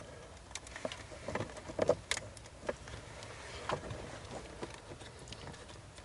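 Irregular light clicks and rustling of a wire being pushed through plastic trim under a car's dashboard and handled as it is fished out.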